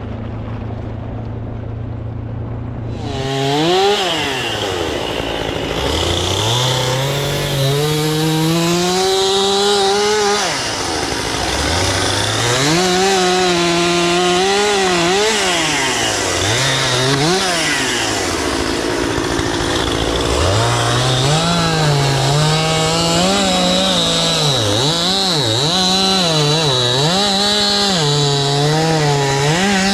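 Chainsaw idling, then revving up about three seconds in and running through a series of cuts in wood, its engine speed rising and dropping again and again as it takes load and revs free.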